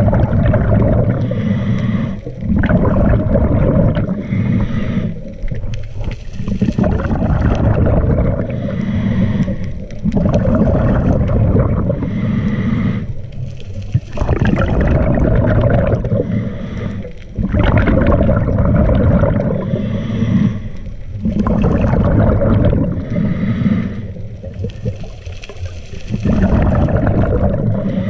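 Scuba diver's regulator breathing, heard underwater: loud gurgling bursts of exhaled bubbles alternate with quieter inhalations, one cycle every three to four seconds.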